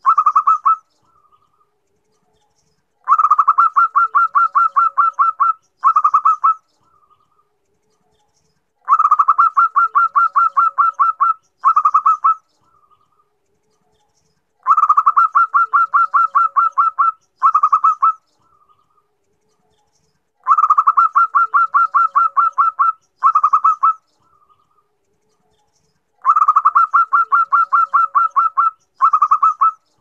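Zebra dove (perkutut) cooing, presented as a female calling for a male. Each phrase is a fast run of staccato notes for about two and a half seconds, a brief break, a shorter run, then one soft note. The phrase repeats about every six seconds, five times over.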